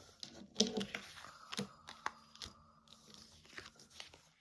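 Tarot cards being handled on a table: rustling and sharp snapping clicks as cards are drawn from the deck and laid or flipped over.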